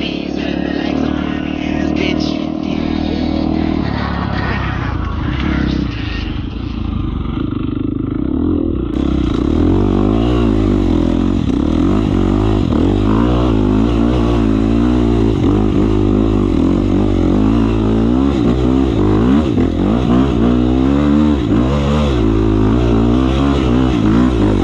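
Dirt bike engines running hard, holding a fairly steady note for the first few seconds, then revving up and down over and over, the pitch rising and falling many times in quick succession.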